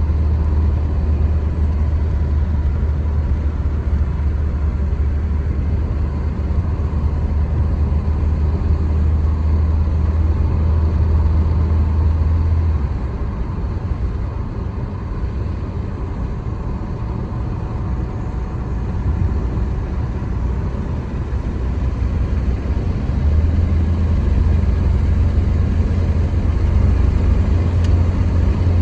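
Car driving on a road: a steady low rumble of engine and tyres. It eases for about ten seconds in the middle, then returns to full strength.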